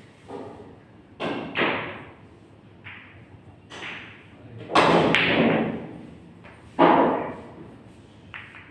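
Pool balls on a pool table during a shot: a series of sharp clacks and knocks as the balls strike one another and the cushions. The loudest come about five and about seven seconds in.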